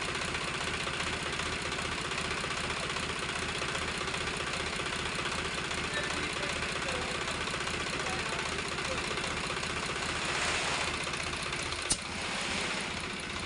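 Swaraj 735 FE tractor's three-cylinder diesel engine idling steadily after its full engine rebuild, with one sharp click near the end.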